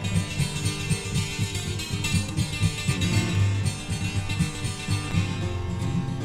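Music: an instrumental passage of a late-1960s folk-rock song, led by guitar, with no singing.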